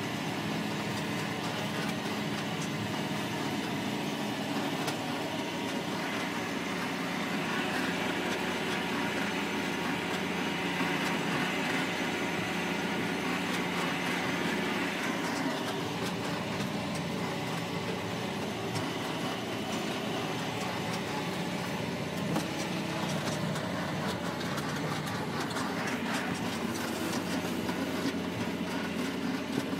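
John Deere 6820's six-cylinder diesel engine running steadily under load, heard from inside the cab as the tractor pulls a Knight triple press, with a steady drone and rumble.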